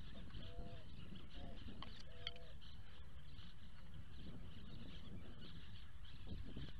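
Three short bird calls in the first two and a half seconds, each with a rise and fall in pitch, over a steady low rumble.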